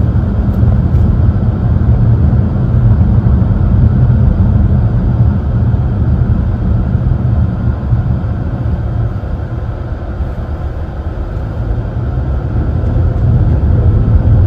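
Steady road and engine rumble inside a moving car's cabin, easing slightly about ten seconds in.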